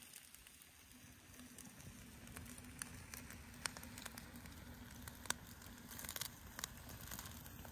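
Quiet wood campfire crackling, with sharp pops at irregular moments.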